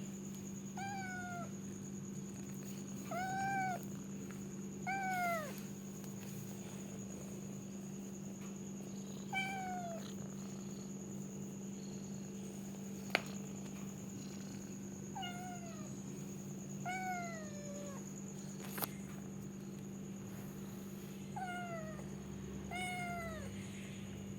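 Domestic cat meowing: about eight short meows, each falling in pitch, a few seconds apart. Two sharp clicks fall between them, one about halfway through and one at about three-quarters.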